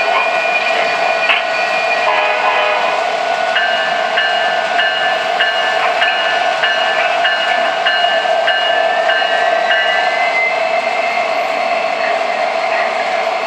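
Sound system of an O-gauge three-rail model diesel locomotive under way: a horn holding a chord for about the first two seconds, then the locomotive bell ringing a little under twice a second for about seven seconds, over a steady running hum of motors and wheels on the track.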